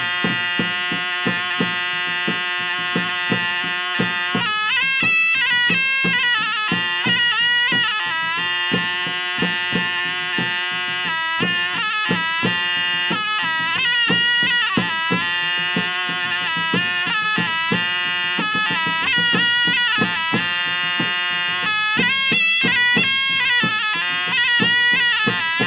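Traditional wedding music: a loud, nasal reed pipe holds and shifts between long melody notes over quick, regular hand-drum strokes.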